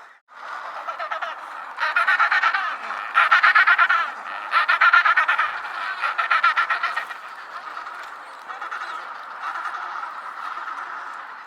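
Penguins calling in a colony: four loud bouts of rapid, pulsing braying calls over a steady chorus of other penguins, settling back to the chorus after about seven seconds.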